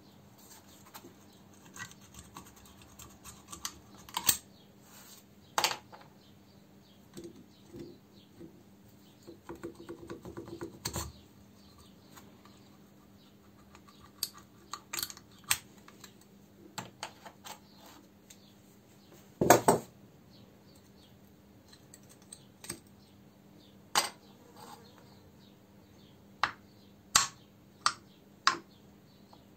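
Tools and small metal parts being handled on a workbench: irregular clicks and clinks, with one louder clatter about two-thirds of the way through, over a faint steady hum.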